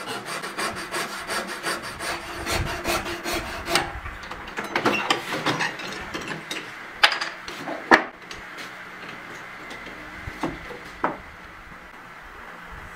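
Hand tools working wood. Rapid, even rasping or sawing strokes, about five a second, run through the first few seconds, then come slower scraping strokes and two sharp knocks about seven and eight seconds in. Near the end there are only a few light cuts.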